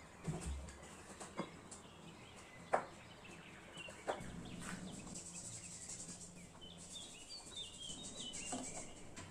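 Quiet kitchen handling: a few sharp, separate clicks and knocks of kitchenware, a second or more apart. Birds chirp in quick short notes in the background in the second half.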